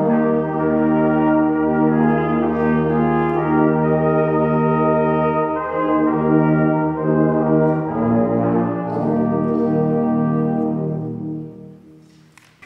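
Brass ensemble playing slow sustained chords, changing chord about eight seconds in and dying away near the end.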